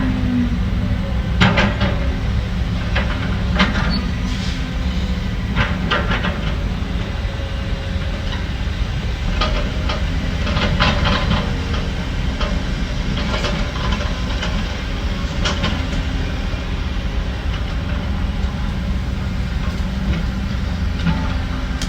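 Heavy diesel construction machinery running with a steady low rumble, punctuated every second or few by sharp metallic clanks and knocks.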